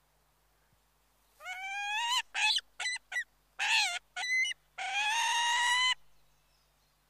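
Bald eagle calling: a run of about eight high calls starting a second and a half in. The first call rises, several short notes follow, and the last is long and held.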